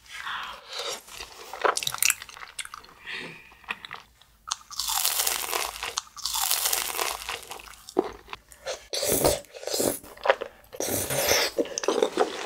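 Close-miked eating sounds: chewing rosé tteokbokki rice cakes and crunching into fried cheese balls, with a loud crunchy bite about halfway through.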